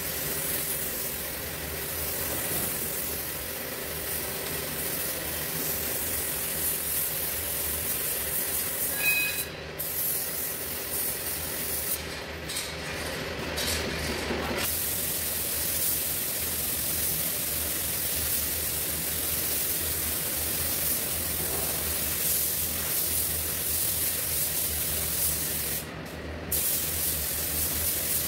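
Air-fed gravity-feed paint spray gun hissing steadily as it sprays paint onto car body panels, over a steady low hum. The hiss drops out briefly a few times.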